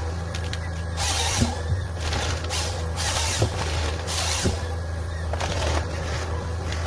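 A heavy forestry harvester's diesel engine runs steadily, with a low hum. Short hisses recur every second or two over it, along with a few sharp knocks from the machine at work.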